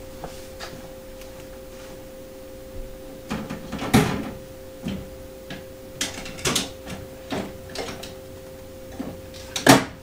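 Handling noise: scattered knocks and clatter as things are moved about and picked up, with one louder knock about four seconds in and another just before the end, over a steady faint hum.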